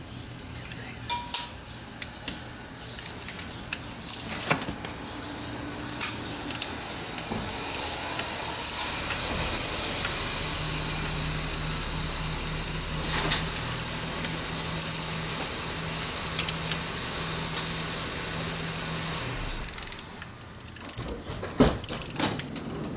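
Metal tools clinking and scattered clicks from tightening the clutch bolts of a 2006 Volkswagen Jetta in their torque sequence. A steady low hum runs underneath through the middle stretch.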